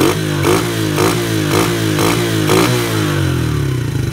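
Chinese 125 cc ATV's air-cooled single-cylinder four-stroke engine coming down from a throttle blip, its revs falling steadily for about three and a half seconds and settling into a steady idle without stalling, with a sharp tick about twice a second as it slows. This is the throttle-response check after the carburettor's air-fuel mixture screw has been set at peak idle RPM.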